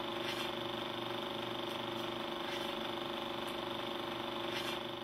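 Film projector running: a steady mechanical whirr over a constant hum, with a few faint ticks.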